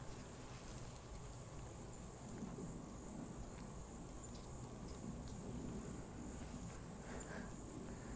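Insects chirring in a steady high drone over a faint low rumble.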